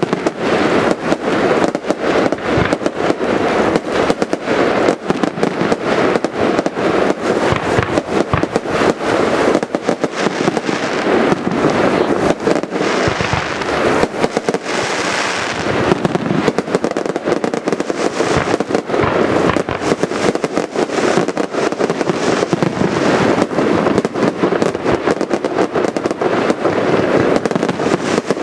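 Fireworks display: a dense, continuous run of aerial shell bursts and crackling, with a hissing rush about halfway through.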